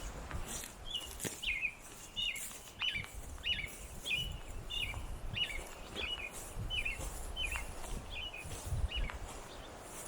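A bird calling a short, hooked chirp over and over, about one and a half notes a second, over a low rumble of wind or handling noise on the microphone.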